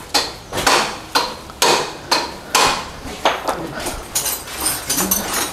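Hammer blows on metal in a workshop, sharp ringing strikes about twice a second, with lighter metallic clinks near the end.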